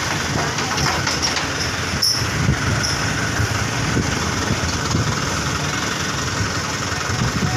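Toyota Dyna 130HT dump truck's diesel engine running with a steady low rumble while the dump bed is worked.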